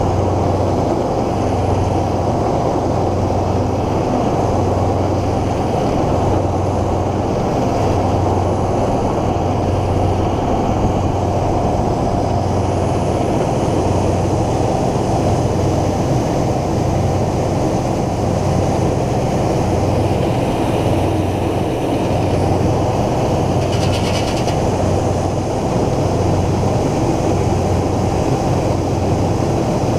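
Farm machinery running steadily while grain is milled into a trailer: a diesel tractor and crimping mill at work. A low hum swells and fades about once a second, and a short hiss cuts in about four-fifths of the way through.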